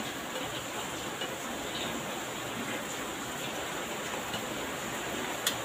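Heavy rain falling outside, a steady even hiss, with one light click near the end.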